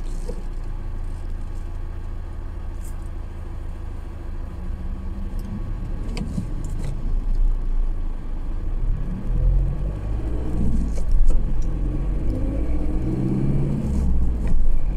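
Engine of a large vehicle heard from inside the cab, running with a steady low rumble while stopped, then pulling away: the engine note rises in pitch and gets louder several times as the vehicle accelerates.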